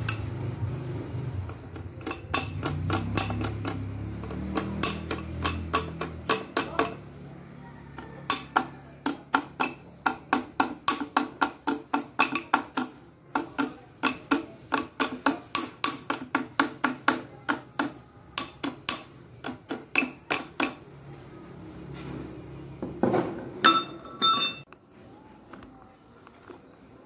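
Metal hand tool tapping along the crimped metal header of a truck radiator core, straightening the bent tabs. A steady run of light metallic taps, about two a second, with a few louder strikes near the end.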